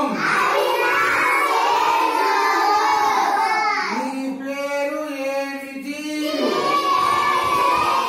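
A group of young children singing together in chorus, with one long held note about halfway through.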